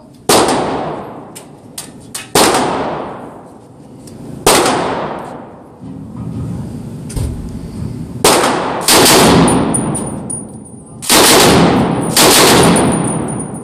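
.30-06 Browning Automatic Rifle M1918 firing about seven single shots and short full-auto bursts, each with a sharp crack and a long echo off the indoor range.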